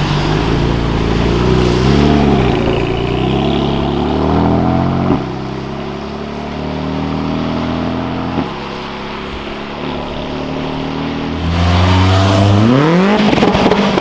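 BMW M4's twin-turbo straight-six accelerating hard, revs climbing with sharp upshifts about five and eight seconds in, then fading as the car pulls away. About eleven and a half seconds in, a second BMW's engine comes in louder, its revs rising steeply as it launches.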